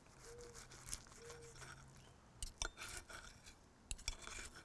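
Knife and fork cutting through a crisped flour-tortilla burrito on a plate: faint crunches, scrapes and small clicks of the cutlery, coming more often in the second half.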